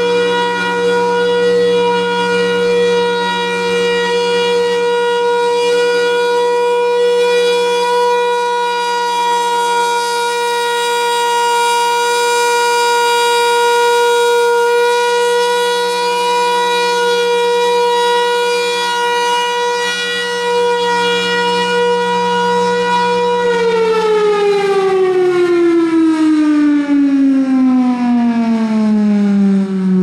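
Federal Signal Thunderbolt 1000 mechanical warning siren sounding its steady Alert tone as its horn rotates, holding one pitch for over twenty seconds, then winding down with the pitch falling steadily. This unit's tone has not sounded right for years.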